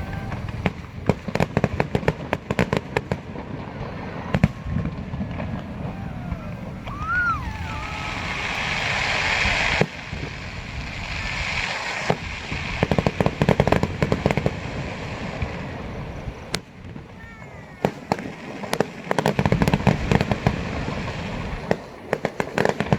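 Fireworks going off: rapid clusters of crackling bangs, with a rising hiss about eight seconds in that cuts off suddenly near ten seconds.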